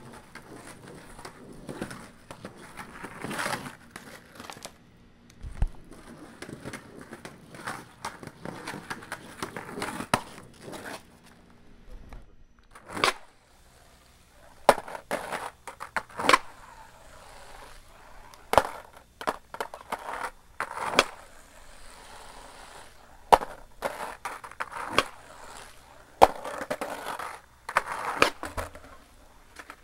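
Skateboard wheels rolling on concrete in repeated swells as the skater rides up and down the walls, with sharp clacks of the board and trucks striking the surface. The clacks are scattered throughout and loudest in the second half.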